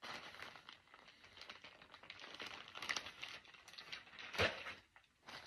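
Plastic packaging bags crinkling and rustling as they are handled, with a louder rustle a little after four seconds in and a short lull near the end.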